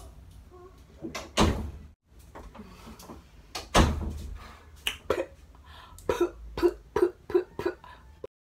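An interior door thudding twice, about two and a half seconds apart, the second thud the loudest. Near the end comes a quick run of about six short, sharp sounds, a little under half a second apart.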